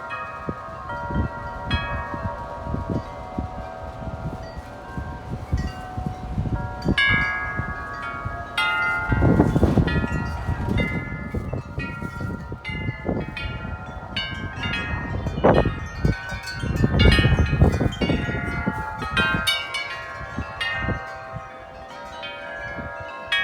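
Large tubular wind chimes, among them a 74-inch Bells of Vienna, struck over and over in strong gusting wind, many tones ringing together. Wind buffets the microphone in heavy gusts, strongest about nine seconds in and again about sixteen seconds in.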